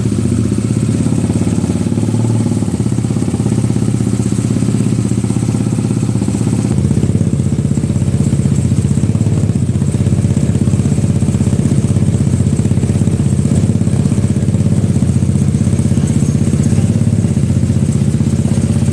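Tuned two-cylinder engine of a Honda CB motorcycle running steadily at idle, with a fast, even firing pulse; its note shifts slightly about seven seconds in.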